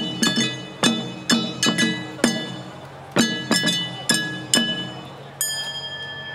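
Hand-held bronze gongs (kane) of jangara nenbutsu odori struck in an uneven rhythm, each hit ringing with bright metallic overtones. About five seconds in, one last gong stroke is left to ring out.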